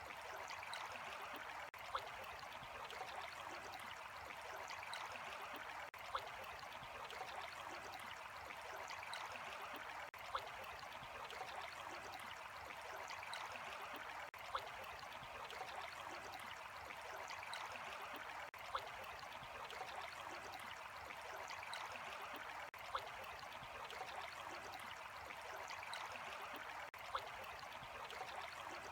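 Running water trickling and gurgling steadily, like a small stream, with a brief click about every four seconds.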